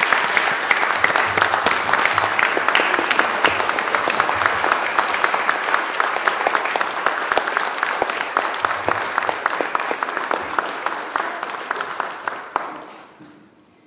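Congregation applauding, a dense clapping that dies away shortly before the end.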